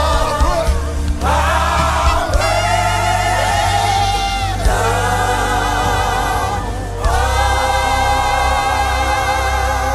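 Gospel worship music: voices singing long held notes over a band with a steady deep bass, new phrases starting about a second in, midway, and about seven seconds in.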